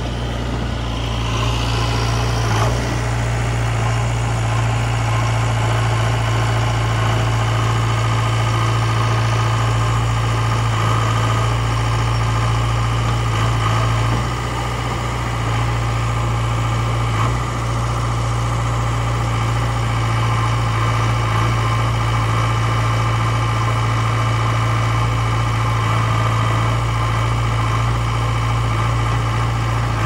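Heavy diesel engines of a backhoe loader and tractor running steadily at one speed, with two brief dips in level about halfway through.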